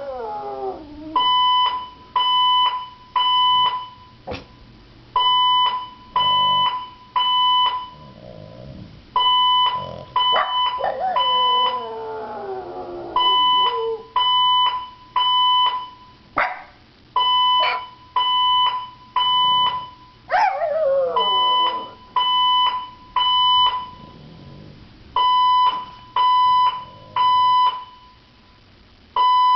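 A fire alarm beeps in short bursts at one fixed pitch, a group recurring about every four seconds. A French bulldog howls along in drawn-out cries that fall in pitch, at the start, in a long one about ten seconds in, and again about twenty seconds in.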